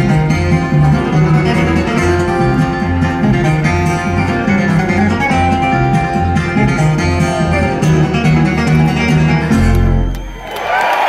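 Bluegrass band playing live through a concert PA: acoustic guitar and banjo over a pulsing upright bass. About ten seconds in the tune ends on a held low note, and the crowd starts cheering and whistling.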